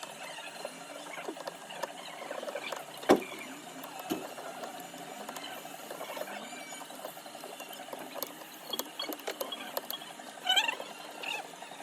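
Small hand tools scraping, picking and clicking on a smartphone during back glass repair, a steady patter of little scratches and ticks. A sharp click about three seconds in and a short squeaky scrape near the end.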